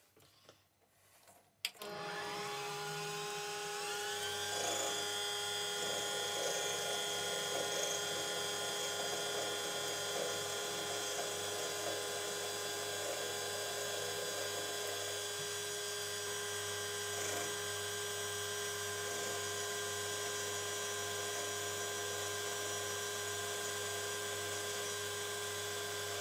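Small metal lathe switched on with a click about two seconds in, its motor spinning up with a rising whine and then running steadily with a chuck-held threaded rod turning, as the rod's end is turned down to fit an 8 mm bearing.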